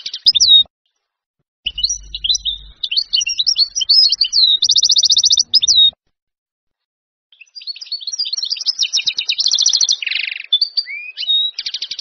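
A Syrian (Levantine) goldfinch, the European goldfinch, singing: rapid twittering phrases of sliding and chipping notes, each ending in fast buzzy trills. The song stops dead twice, for about a second and then about a second and a half.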